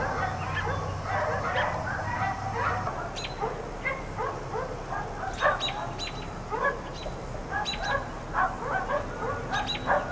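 Several dogs barking over and over, short barks coming several a second and overlapping one another.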